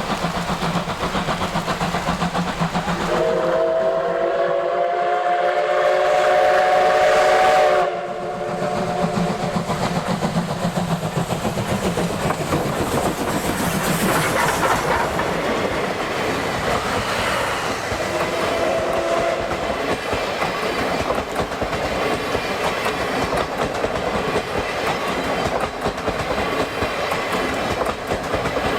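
C57 180 steam locomotive sounding a long chime of its steam whistle about three seconds in, held for some five seconds and cut off sharply, then a short fainter toot later on. Throughout, the locomotive's exhaust draft beats and the train's rolling noise go on steadily.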